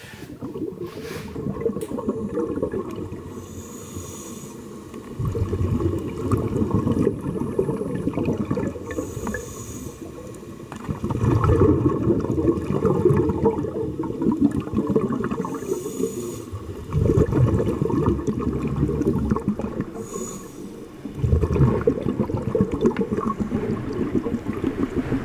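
Underwater ambience: low rumbling water noise that swells and fades about every five to six seconds, with a short high hiss just before several of the swells.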